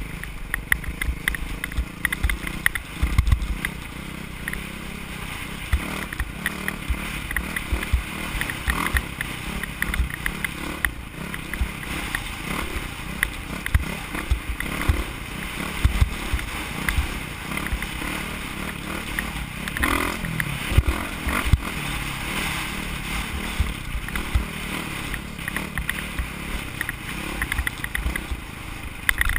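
Off-road dirt bike engine running at speed over a rough dirt trail, with frequent low thumps from the bumps and wind noise throughout.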